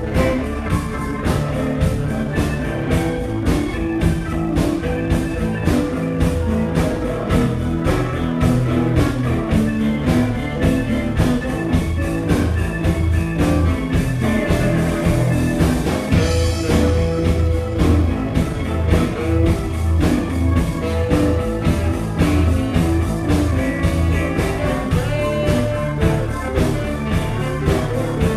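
Live blues band playing a steady groove, with electric guitar, bass and drum kit.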